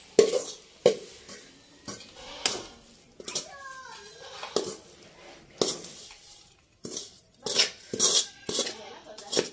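A metal spoon knocking and scraping against a metal pot and a steel plate as thick, hot coconut burfi mixture is scraped out of the pot. The sharp clinks come irregularly, about one a second.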